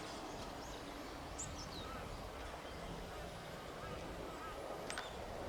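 Outdoor ambience: a steady low rush of background noise with a few faint, short bird calls, one sliding down in pitch about a second and a half in and a sharp one near the end.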